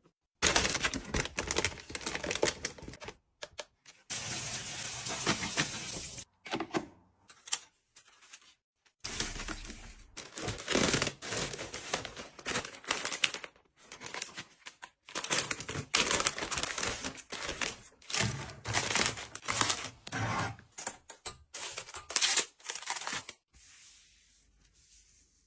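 Packaged household goods being handled and arranged: plastic packaging rustling and items clicking and tapping as they are set down, with a longer rustle about four seconds in.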